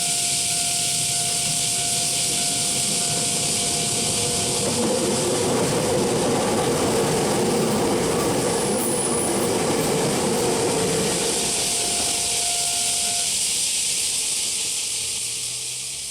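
Electric train passing a Japanese level crossing, its rolling noise loudest in the middle, while the crossing's warning bell sounds. The bell stops about thirteen seconds in and the train noise fades away.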